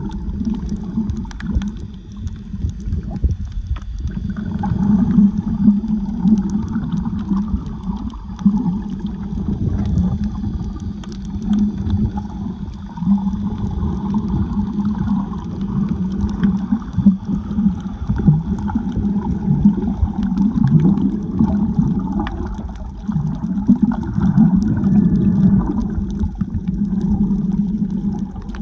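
Water sloshing and gurgling around a snorkeler's camera in the sea, a steady low rush that swells and fades every few seconds, with many faint scattered clicks.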